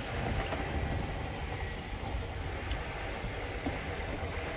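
Car engine idling steadily with a low rumble, a couple of faint clicks over it.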